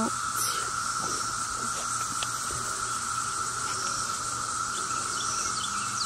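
A dense chorus of cicadas, droning steadily as one unbroken high hum.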